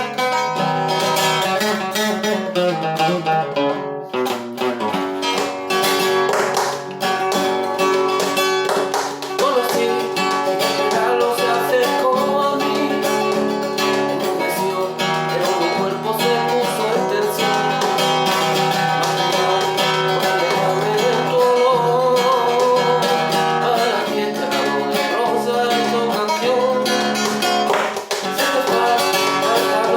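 Acoustic guitar playing a piece, picked and strummed, with a singing voice over it from about a third of the way in.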